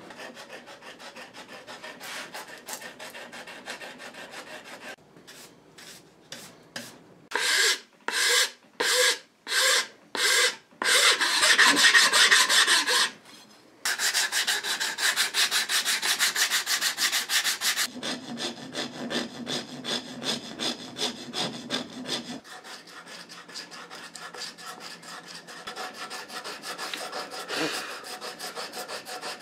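Hand sanding of Bondo body filler with sandpaper on a shaped wooden block, rasping back-and-forth strokes. About a quarter of the way in comes a run of separate loud strokes, a little under one a second, then a louder continuous stretch, then quicker, shorter strokes.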